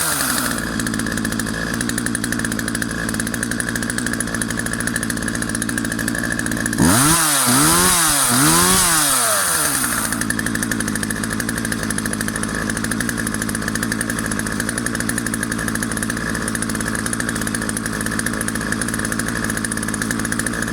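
Partner 350 two-stroke chainsaw idling, revved in three quick blips about seven seconds in, then settling back to a steady idle.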